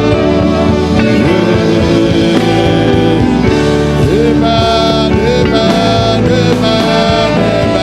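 Slow worship music: sustained instrumental chords, with a singing voice gliding over them.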